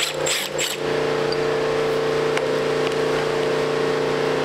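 Cordless Milwaukee driver spinning out bolts from a bracket on a 48RE transmission's overdrive housing, in a couple of short bursts within the first second, over a steady low hum.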